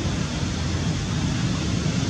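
Steady low rumble with a hiss over it, with no distinct events: outdoor background noise, such as wind on the microphone or distant traffic.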